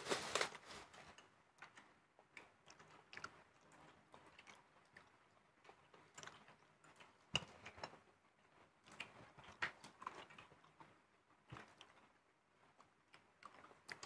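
Faint, scattered clicks and taps of spoons against plates and bowls, with chewing, as people eat a meal.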